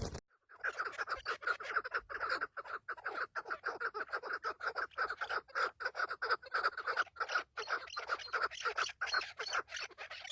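A bird calling in a rapid, continuous run of harsh, chattering notes.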